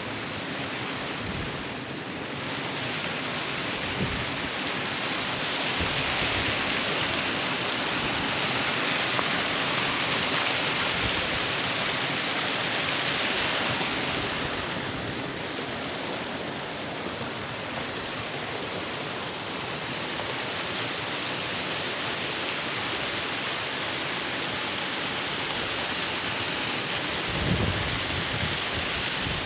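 Waterfall: a steady rush of falling water that grows louder for several seconds in the middle. A few low bumps on the microphone near the start and shortly before the end.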